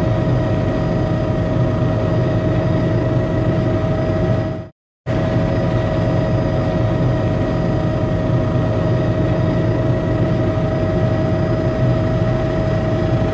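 Steady engine and rotor drone heard from inside a low-flying helicopter, with a constant whine over a low rumble. It cuts out for a moment about five seconds in, then resumes unchanged.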